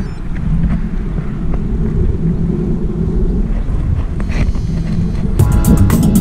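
Wind buffeting the microphone of a camera on a moving tandem bicycle, a steady low rumble. Background music comes in about five seconds in.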